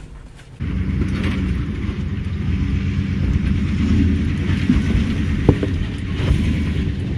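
Full-size van's engine running as it drives across rough off-road ground, steady and low, with a sharp knock about five seconds in.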